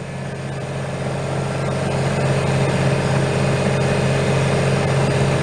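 Air compressor running with a steady low hum, getting a little louder over the first couple of seconds.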